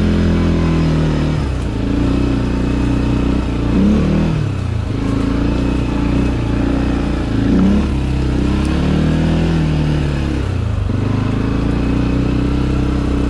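CFMoto 450L ATV's single-cylinder engine under way, its pitch rising and falling several times as the throttle is opened and eased off, with steady running between.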